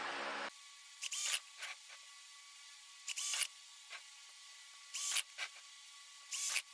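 Short scraping bursts from work on a glass jar's metal screw lid, about six of them, a second or so apart, over a faint steady hum.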